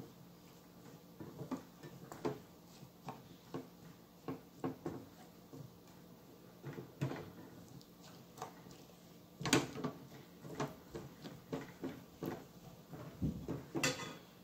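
Silicone spatula scraping and knocking against a non-stick frying pan as reheated rice is stirred and mashed to break up clumps: irregular soft knocks, one or two a second, with two louder ones partway through and near the end.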